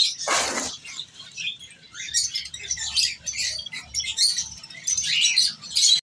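Many small birds chirping in short, high, overlapping calls that come irregularly, with a brief burst of noise about half a second in.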